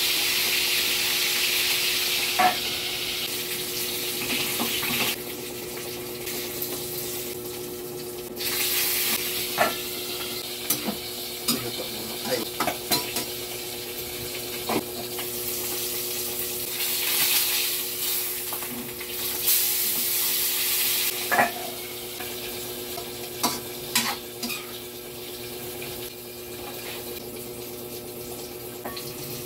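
Fish frying in hot oil, sizzling loudest at first and swelling again later, with metal spatula and spoon clicking and scraping against the pans, pot and bowl. A steady low hum runs underneath.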